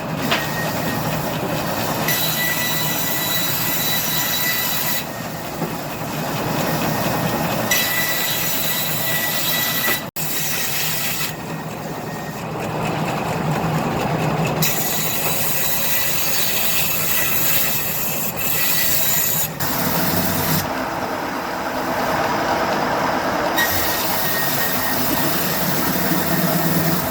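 Sawmill band saws running and cutting logs: a steady mechanical noise with a high squealing whine from the blades. The sound changes abruptly about ten and twenty seconds in.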